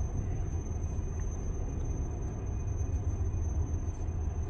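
Low, steady rumble of an Amtrak Superliner passenger car rolling slowly, heard from inside the car, with a faint constant high whine above it.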